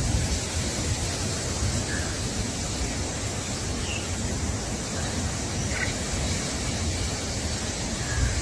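Steady rushing noise with an uneven low rumble, and a few faint short chirps, spaced about two seconds apart, from small birds.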